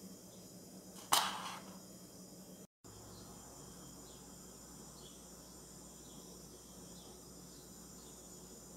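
Faint steady background hiss, broken about a second in by one sharp knock that dies away within half a second.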